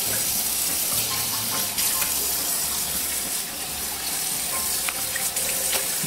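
Kitchen faucet running steadily into a sink, the stream splashing over raw poultry pieces as hands rinse and turn them.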